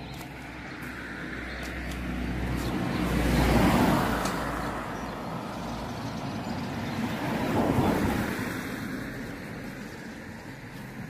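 Two vehicles driving past in turn, each one's noise swelling up and fading away, about four seconds apart.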